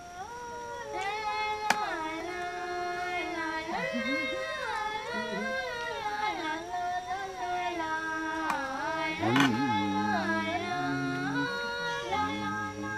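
Women's voices singing a melody in harmony, the notes held and stepping between pitches; lower parts join about nine and a half seconds in.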